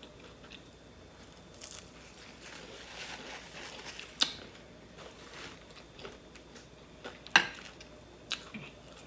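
Quiet, close-up eating sounds: a person chewing waffle fries and chicken wings, with a few sharp clicks and smacks, the two loudest about four and seven seconds in.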